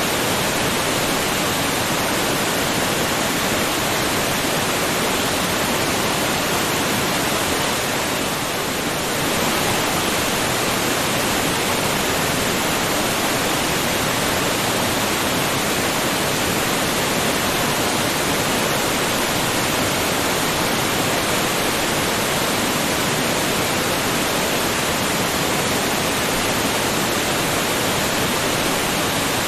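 Waterfall: water pouring down steadily, an even rushing hiss with no breaks, dipping slightly about eight seconds in.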